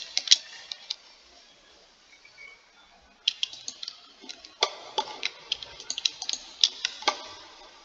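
Irregular runs of sharp clicks from a computer mouse and keyboard, with a lull of about two seconds after the first second.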